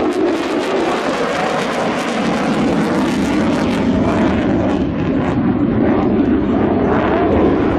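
Fighter jet engine noise: a loud, steady rush with a rapid crackle throughout.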